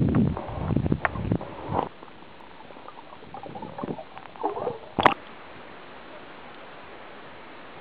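Water sloshing and gurgling around an underwater camera as a swimmer moves. There are dense knocks and bubbling for the first two seconds, softer scattered gurgles after that, and one sharp click about five seconds in, then only a steady faint hiss.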